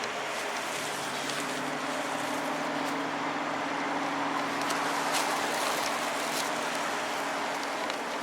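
A road vehicle's engine running steadily with a low hum, over general street noise.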